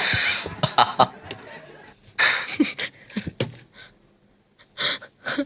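People laughing in short, separate bursts, loudest at the start and fading toward the end.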